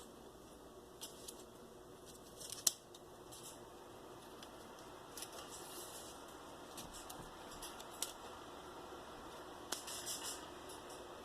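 Faint, scattered clicks and short snipping sounds from a small hand tool being handled up close. The sharpest click comes a little over two and a half seconds in, and a small cluster follows near the end.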